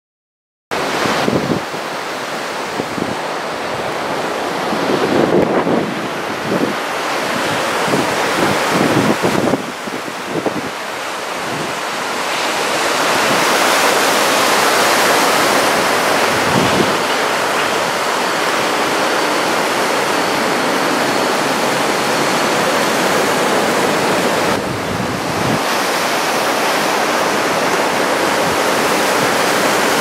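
Waist-high typhoon swell breaking on the beach, a continuous rushing wash of surf. Wind buffets the microphone in gusts over the first ten seconds or so.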